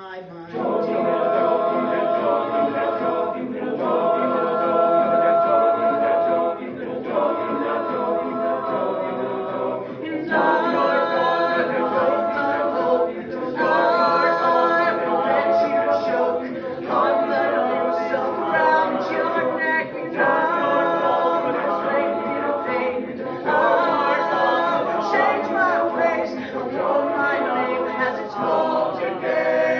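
A cappella vocal group singing close-harmony chords in repeated phrases of about three seconds each, with no instruments. The voices come in together right at the start after a brief silence.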